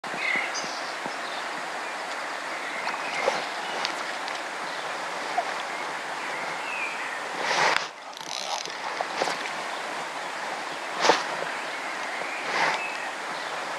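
Steady rush of a small river's flowing water, with a few brief louder sounds standing out, the loudest about eleven seconds in.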